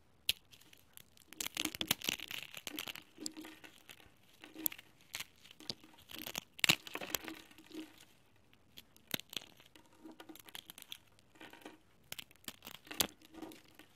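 Dry, uncooked instant ramen noodles being broken and crushed by hand, the brittle strands snapping and crunching in quick, irregular crackles, with the loudest snap about halfway through.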